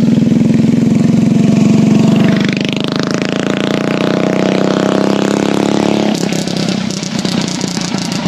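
An engine running loud and steady, revving with a rising whine about three seconds in, then turning rougher and rattly about six seconds in.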